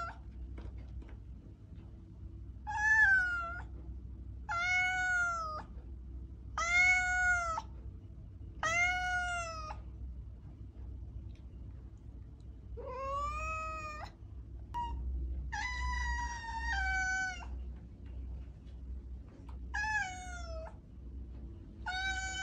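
A cat meowing repeatedly: about eight drawn-out meows, roughly one every two seconds, with a pause of a few seconds midway.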